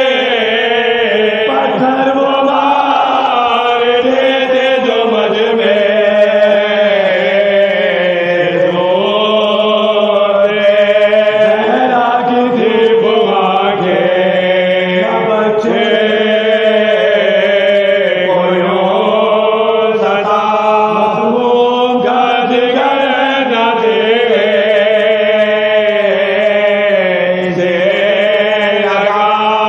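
Soz khwani, Shia lament chanting, sung by male voices in long, wavering held notes.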